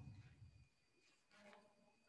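Near silence: room tone with a faint steady high-pitched whine.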